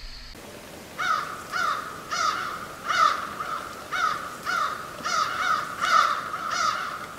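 A crow cawing over and over, starting about a second in: about two caws a second with uneven pauses, each caw falling slightly in pitch.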